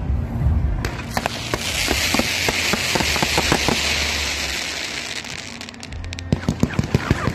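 Fireworks display heard close to the launch site. Scattered crackling pops give way to a loud hiss from a row of ground fountains spraying columns of sparks for about four seconds. Near the end comes a quick string of sharp bangs.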